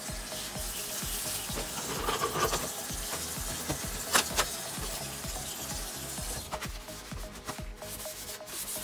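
Sponge scrubbing against a stainless steel sink and faucet base, a steady rubbing hiss, with a couple of sharp knocks a little after four seconds in. Background music with a steady beat plays underneath.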